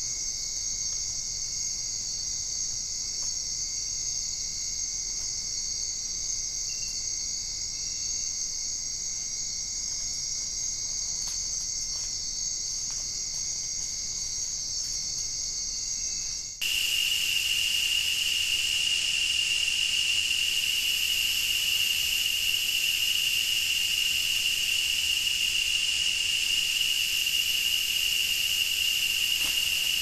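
Steady chorus of rainforest insects, high-pitched and unbroken. A little past halfway it changes abruptly to a louder, different insect chorus carrying one steady shrill tone.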